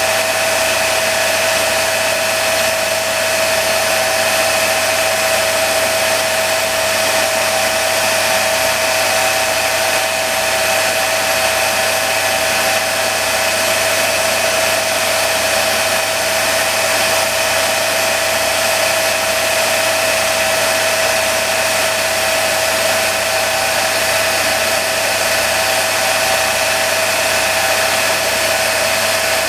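Rotary grinding machine running steadily: an even whine over a constant hiss.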